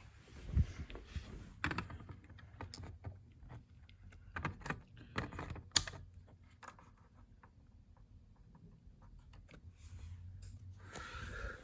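Scattered light clicks and knocks, then near the end an electric HVAC air handler's blower starting up, a steady rush of air that grows louder.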